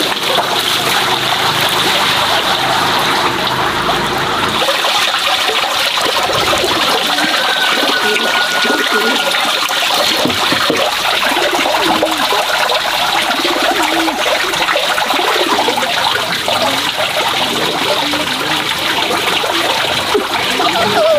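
Water running steadily and splashing into a plastic basin; for the first few seconds hands splash a bowl about in the basin water.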